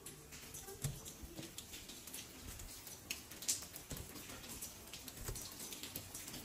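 Light rain pattering and dripping, heard as irregular scattered ticks with an occasional soft thump.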